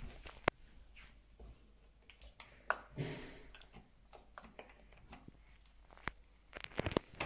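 Scattered clicks and handling noise as buttons on an apartment intercom panel are pressed and a door handle is worked, with a short rustle about three seconds in.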